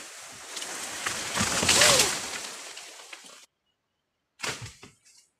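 Rustling of leaves and branches in the bamboo and tree canopy, swelling to a loud rush about two seconds in with a brief creak, then breaking off suddenly; one short burst of the same rustling comes near the end.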